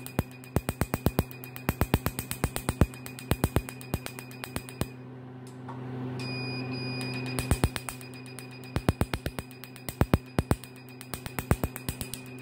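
Nd:YAG laser pulses snapping on carbon-coated skin during a carbon peel, a rapid run of sharp clicks about five a second, over the steady hum and high tone of the laser machine. The clicks stop for a couple of seconds near the middle, then resume.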